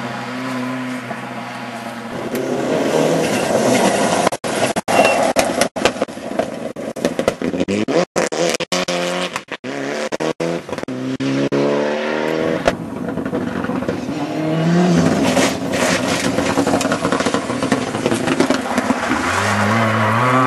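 Rally car engines at full stage speed, revving hard and changing up and down through the gears as the cars pass. The sound cuts out for split seconds several times between about four and ten seconds in.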